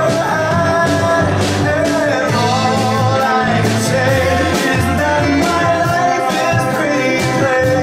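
Live band music with a man singing lead over ukulele, electric bass, cello and drums, at a steady beat.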